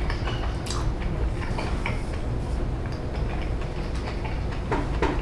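A few light taps and clicks from handling a small plastic sauce cup and takeout containers during eating, over a steady low hum.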